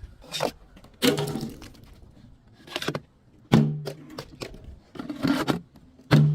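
A series of about six sharp crashing impacts, each with a short ringing tail, as objects are smashed.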